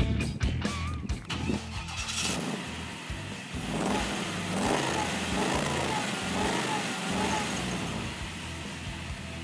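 Music ends about two seconds in, giving way to a 1969 Camaro SS's 350 V8 engine running, its speed rising and falling a few times in the middle.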